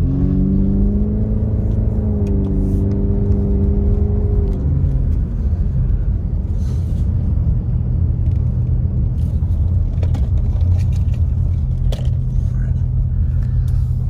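Car engine and road noise heard from inside the cabin. The engine note rises as the car speeds up at the start, holds steady for about four seconds, then falls away, leaving a low steady rumble.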